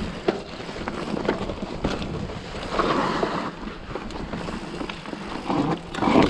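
Wind buffeting the microphone as a mountain bike rolls down a rocky trail, with the tyres crunching over loose stones and the bike clattering in short knocks.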